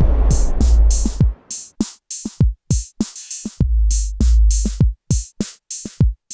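Hip-hop style drum-machine beat: deep bass kicks that slide down in pitch, with sharp snare and hi-hat hits between them. It stops near the end.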